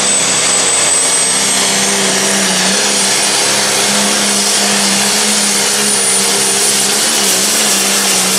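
A John Deere Pro Stock pulling tractor's turbocharged diesel engine runs loud and steady at full throttle while pulling the sled, with a high whistle over it.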